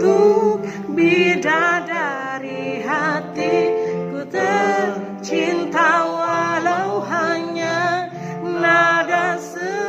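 A solo voice singing a slow pop ballad melody in phrases with vibrato, over an accompaniment of held chords. The singer blames an off-key voice on flu and a cough.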